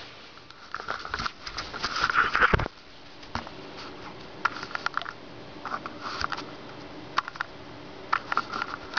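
Packaging being handled and moved about: a dense stretch of rustling and knocks in the first few seconds, then shorter bursts of rustling and clicks every second or so.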